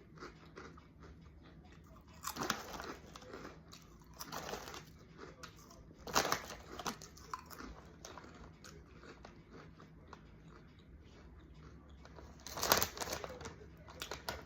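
Crunchy seaweed-flavoured snack chips being bitten and chewed close to the microphone, in a few separate bursts of crunching with quieter stretches between.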